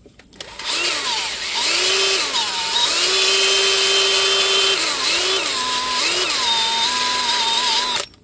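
DeWalt 20V cordless drill spinning a wire wheel brush against a brake caliper bracket, scrubbing off rust and brake dust. The motor's pitch drops and recovers several times as the wheel is pressed on and eased off. It starts about half a second in and cuts off just before the end.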